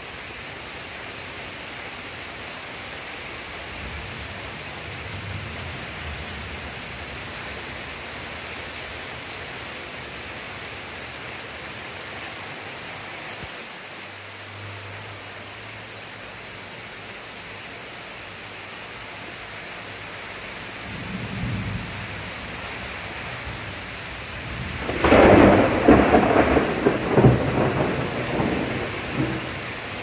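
Heavy thunderstorm rain falling steadily. A low rumble of thunder comes about 21 seconds in, then a loud thunderclap about 25 seconds in that rumbles on for several seconds.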